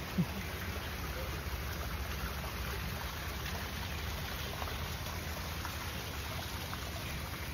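Small rock waterfall running into a koi pond: a steady splashing, trickling water sound. One brief low blip just after the start.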